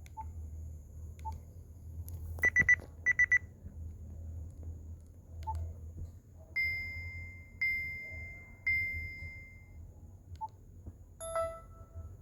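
BlackBerry Curve 9220 phone speaker playing short electronic ringtone beeps: a quick run of three and then four high beeps, then three longer beeps about a second apart, and a brief lower beep near the end, with a few faint ticks and a steady low hum underneath.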